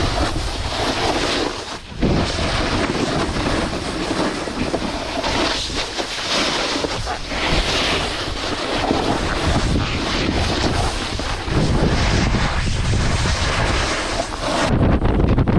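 Wind rushing over an action camera's microphone during a fast snowboard descent, mixed with the board's edge scraping and chattering over mogul snow. Near the end the rush abruptly turns duller and lower.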